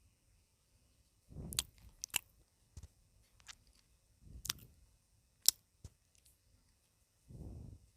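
Close-up eating of chicken noodles: chewing with sharp, wet mouth clicks and smacks, the loudest about five and a half seconds in, and a short soft puff of sound every few seconds.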